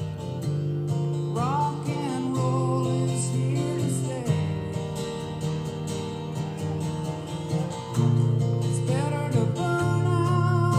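Background music led by a strummed acoustic guitar with an even rhythm.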